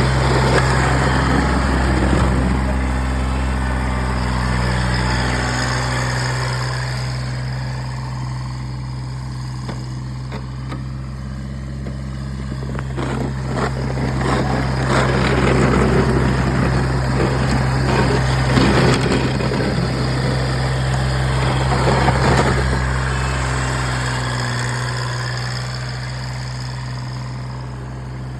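Kubota BX1800 compact tractor's diesel engine running steadily. A louder rushing, scraping noise swells and fades through the middle stretch.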